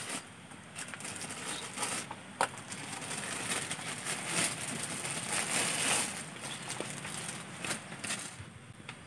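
Banana leaves rustling and crackling while cooked rice is scooped from the pot and spread over them by hand, with scattered small clicks and taps.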